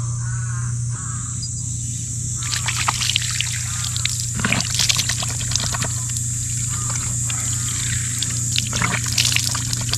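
Water running from an outdoor tap and splashing off a hand into a concrete sink basin, from about two and a half seconds in. A crow caws a few times near the start.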